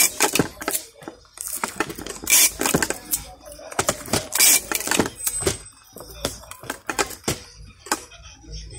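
Stiff clear plastic gift packaging being handled: crinkling and clicking of the plastic, with three louder crinkles near the start, about two and a half seconds in and about four and a half seconds in, then quieter handling.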